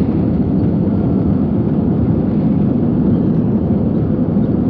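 Jet airliner's engines running loud and steady during takeoff, heard inside the passenger cabin as a constant low noise.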